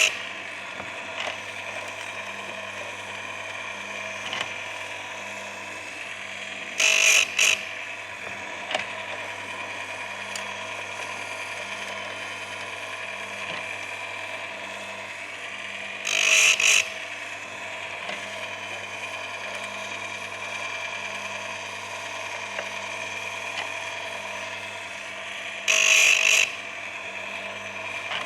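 Electric chainsaw sharpener's motor running with a steady hum, its grinding wheel biting into a chain tooth three times, each grind a harsh rasp of under a second, about nine seconds apart, as the teeth are sharpened one by one.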